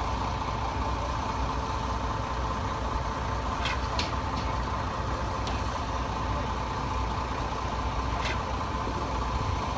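Diesel engines of heavy construction machinery idling steadily: a low rumble with a steady whine on top, broken by a few light clicks.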